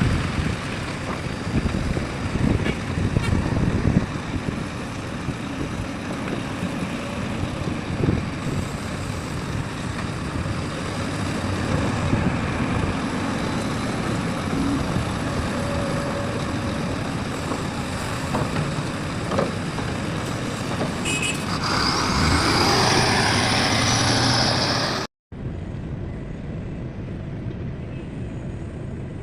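Heavy diesel machinery running steadily, with scattered knocks. About 22 seconds in a loud hiss of air rises, then stops abruptly, and a quieter engine hum follows.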